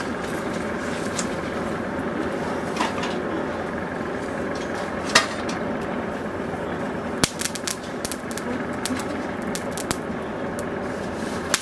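Charcoal forge fire under a steady air blast, a constant rushing noise. Sharp ticks and clinks from the coals and the tongs on the blade sound over it, growing more frequent in the last few seconds.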